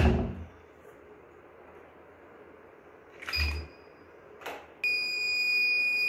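A couple of dull thumps, then, about five seconds in, a homemade door alarm's 5V buzzer, run from a 9V battery, starts with a steady, loud, high-pitched tone. It sounds as the door opens and pulls the thread out of the clip, so the clip's contacts close the circuit.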